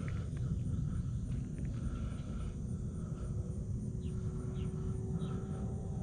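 Low wind rumble on the microphone with the faint steady drone of an electric RC airplane's motor in flight, and three short falling chirps near the end.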